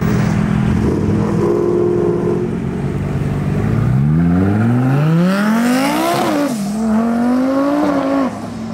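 Twin-turbo Lamborghini Huracán V10 rolling out at low revs, then accelerating hard with its turbos whistling. The revs climb steeply from about four seconds in, drop at an upshift, climb again, and drop at a second shift near the end.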